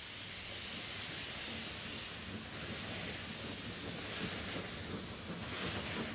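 Isle of Man Railway narrow-gauge steam tank locomotive starting away, with steam hissing throughout and a few slow, spaced exhaust beats about every second and a half.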